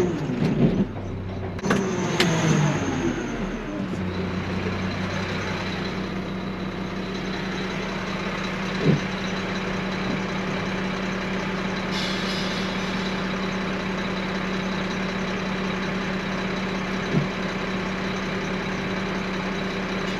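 Garbage truck engine heard from inside the cab: it changes pitch for the first few seconds as the truck slows to a stop, then idles steadily. There are two brief knocks and a short hiss partway through.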